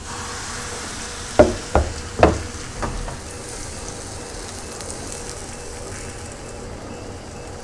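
Pancake batter sizzling steadily in a hot, smoking frying pan as it is poured in. Four sharp knocks come between about one and a half and three seconds in, louder than the sizzle.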